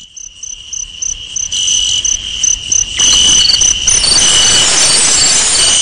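Crickets chirping: a steady high trill with regular chirps about four a second. About three seconds in, a loud rushing noise joins them and cuts off near the end.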